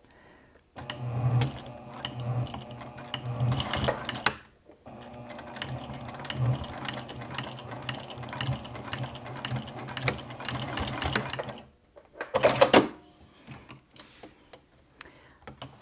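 Juki TL2010Q straight-stitch sewing machine running, stitching across the thick folded side of a fabric wallet. It sews in two runs, about three and a half seconds, a short pause, then about seven seconds more, and gets through the bulk without stalling. A short loud clatter comes near the end.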